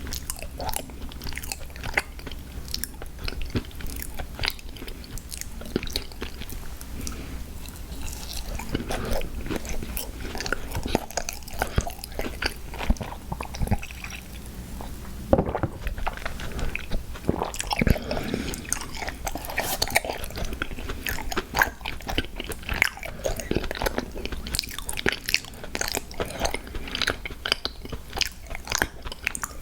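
Close-miked mouth sounds of someone eating sweets: a steady run of bites, chewing, smacks and light crunches.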